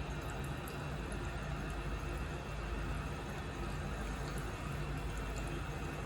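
Toilet water running steadily, with faint ticks.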